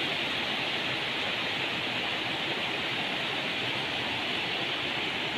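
Water of a rocky mountain river rushing steadily over stones.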